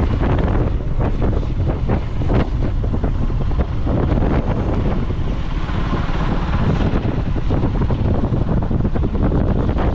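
Loud wind buffeting the microphone of a rider on a moving KTM motorcycle: a rough, fluttering rumble heaviest in the low end.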